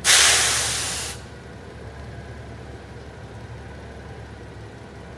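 A sharp hiss of air from the Mack garbage truck's air brake system, lasting about a second and fading away. Afterwards the truck's diesel engine idles steadily.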